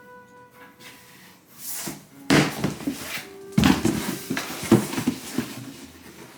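A cardboard box rustling, scraping and knocking in a quick irregular run, as a cat moves about in it.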